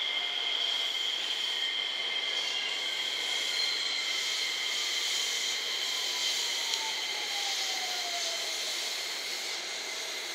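JR West 227 series electric multiple unit pulling into a station and slowing, with a rolling hiss of wheels on rail. Its traction motor and inverter whine falls steadily in pitch as it brakes, over a steady high whine.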